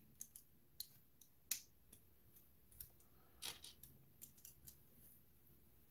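Lego bricks being handled and pressed together: several short plastic clicks spread over near silence, the loudest about a second and a half in and again about three and a half seconds in.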